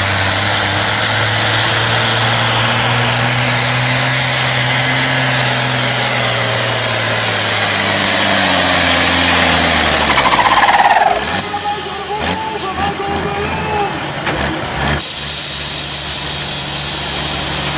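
Diesel pulling tractor running flat out under load as it drags the sled, its engine note holding steady for about ten seconds. About eleven seconds in the revs sag and drop away as the pull ends, leaving a quieter engine sound mixed with other noise.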